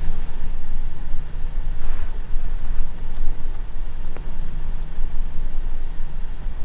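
Open-air ambience: a steady low rumble, with an insect chirping in an even rhythm a few times a second above it.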